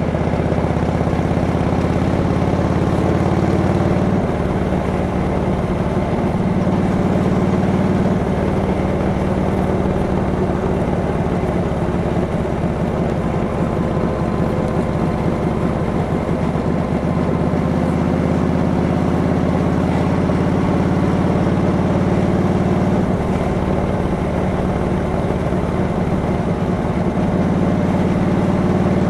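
1943 Harley-Davidson WLC's 45-cubic-inch flathead V-twin engine running steadily on the road, heard from the rider's seat, its pitch shifting a few times as the revs change.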